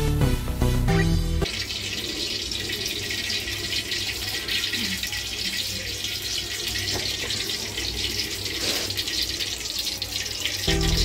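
Oil sizzling as it heats in an aluminium kadai on a gas stove: a steady, even hiss. Background music plays for the first second and a half and comes back near the end.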